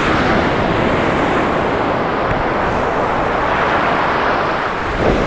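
Steady rushing of Gulf surf and wind buffeting the microphone, with a brief dip in level near the end.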